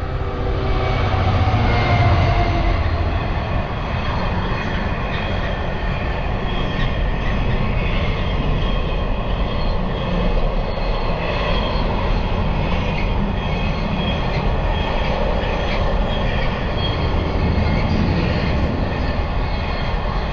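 Freight train passing close by: a steady, loud rumble of wagons rolling on the rails, with thin high wheel squeals and occasional clicks.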